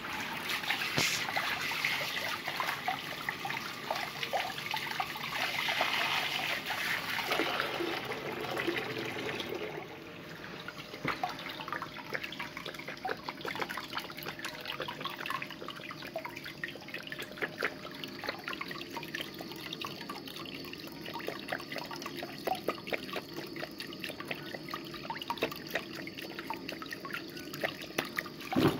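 Water running from a washbasin tap and splashing over hands and into the basin, with a trickle and many small drips. A louder rush of water fills the first ten seconds or so, and a single sharp knock comes right at the end.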